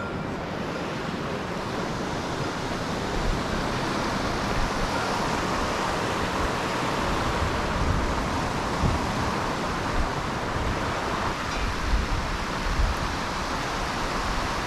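Rushing water of a mountain stream, a steady even rush. Wind buffets the microphone now and then in the second half.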